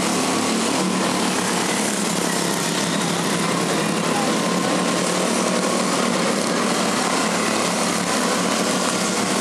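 Several quarter midget race cars' small single-cylinder engines buzzing steadily as the cars lap the track together.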